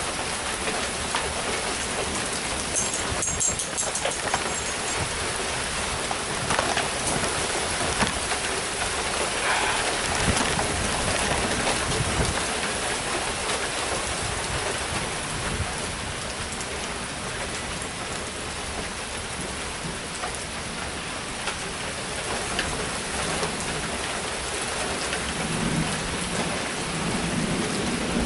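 Steady rain from a severe thunderstorm pattering on surfaces close by, with a low rumble of thunder near the end.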